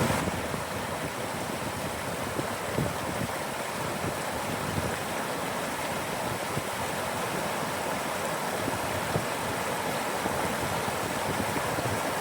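Mountain stream flowing over rocks: a steady rush of water with small splashing fluctuations.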